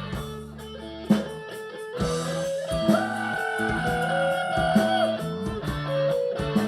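Band music without singing: an instrumental passage carried by guitar over a bass line, with a long held note in the middle.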